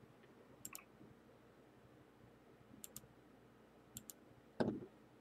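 Computer mouse button double-clicked three times, a sharp pair of clicks each time, followed near the end by one short, louder knock.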